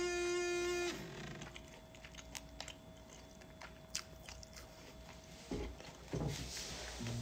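Chewing sounds close to the microphone, with small wet clicks, after a guitar note of the background music fades about a second in; the music comes back near the end.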